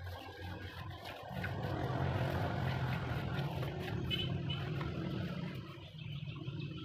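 A motor vehicle's engine rumble that swells about a second in, holds for several seconds and eases off near the end.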